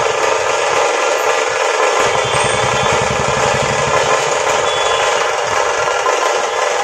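Dhol-tasha drum troupe playing, a loud, dense and unbroken din of drumming.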